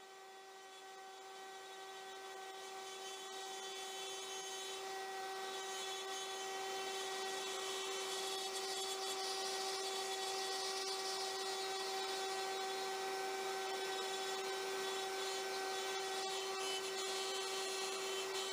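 A Maslow CNC's router motor running at a steady high whine as the bit cuts slowly through 1/2 inch CDX plywood, with a hiss of cutting and dust extraction beneath it. It grows louder over the first several seconds, then holds even.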